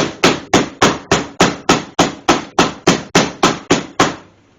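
Rapid, evenly spaced blows of a meat mallet on a boneless pork loin on a countertop, about three and a half strikes a second, tenderizing and puncturing the meat into cube steak. The pounding stops about four seconds in.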